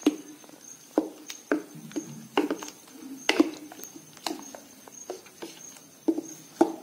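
Wooden spoon stirring a thin, watery dal-and-masala mixture in a steel pot, knocking against the pot's sides and sloshing the liquid in irregular strokes, about two a second.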